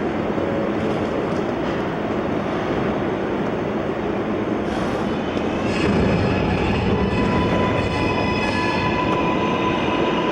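New York City subway train running, a steady rumble of wheels on track, with several high squealing tones starting about six seconds in.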